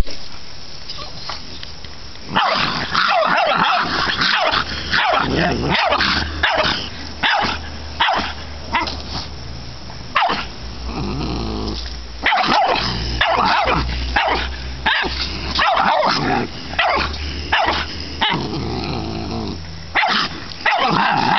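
Boston Terrier barking and growling in fits: bursts of sharp barks with longer low growls held between them.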